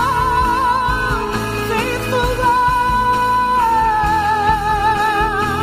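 Worship music: a singer holds long notes with vibrato over a steady band accompaniment. One note in the middle is held level, then slides down a little and carries on wavering.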